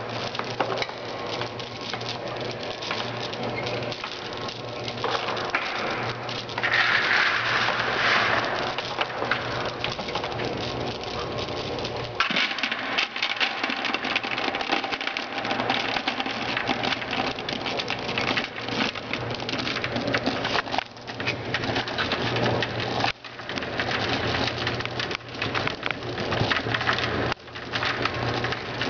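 Chopped gum pieces pouring from an industrial feeder's discharge tube and pattering continuously into a plastic-lined box, then into a plastic bucket, over the feeder's low steady hum.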